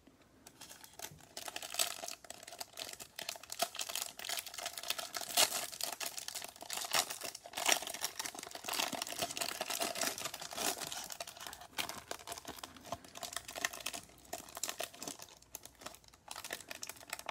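Plastic wrapper of a Panini Chronicles trading-card hanger pack crinkling as it is torn open by hand: a dense run of crackles that starts about half a second in.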